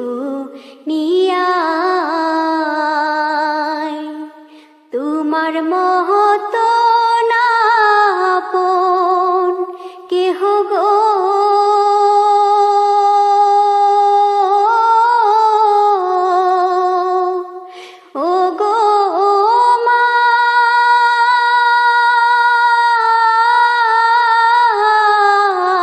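A single high voice singing a slow, mournful Bangla gojol, drawing out long held notes that waver and bend at the phrase ends. There are three long phrases with short breaths between, and no instrument is heard under the voice.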